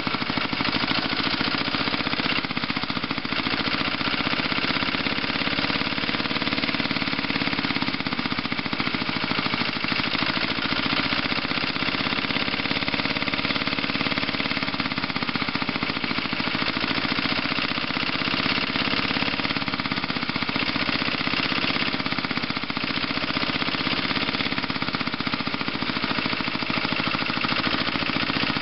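Farymann diesel engine of a Jacobsen Chief garden tractor running steadily, with a rapid, even clatter of firing pulses.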